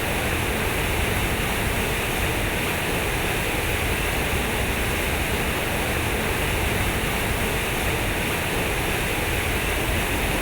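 Steady rushing of water, an even noise that does not change.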